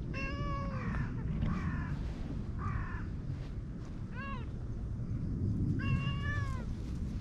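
A cream-coloured cat meowing five times: a long call at the start, three shorter ones, and another long call near the end, each falling in pitch as it fades.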